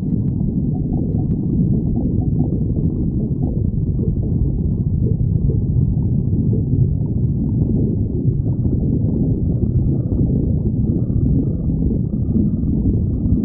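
A person's stomach growling with a continuous low rumble.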